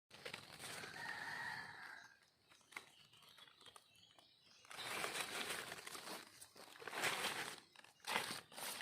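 Dry forest leaf litter rustling and crackling, in loud bursts from about five seconds in. A short bird call sounds about a second in.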